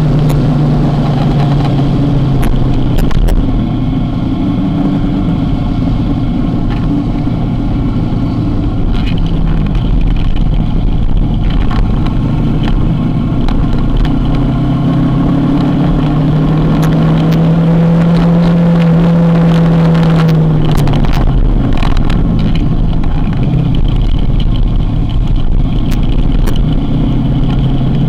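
Motorcycle engine running under way, with a steady engine note that swells and rises in pitch about two-thirds of the way through, then drops back.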